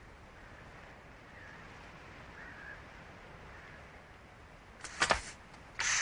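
Compressed-air capsule gun going off: a sharp crack about five seconds in, then a louder, longer blast of hissing air just before the end.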